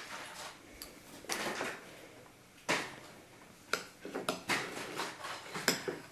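A scattered series of light knocks and clatters, like dishes or utensils being handled during a meal, with a quick cluster of clicks in the second half.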